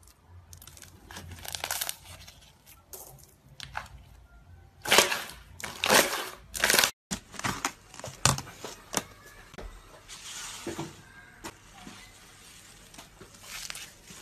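Slime being squished by hand in a run of crackles and pops. First it is pressed through a wire grid, loudest just before a short break about seven seconds in. Then a fluffy pale-blue slime is pressed and poked in a plastic tub with quicker, lighter crackles.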